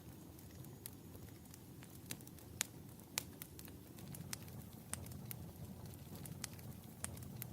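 Wood fire burning in a fireplace: a low steady rumble of flames with irregular sharp crackles and pops, two louder pops about two and a half and three seconds in.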